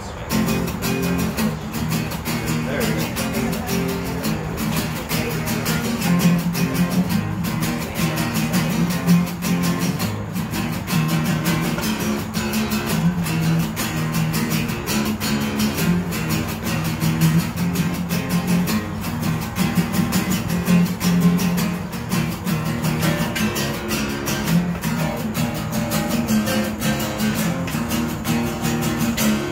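Two acoustic guitars strummed together in a fast, steady rhythm, with no singing.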